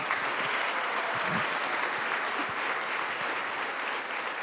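Audience applauding: many people clapping together, held steady for a few seconds.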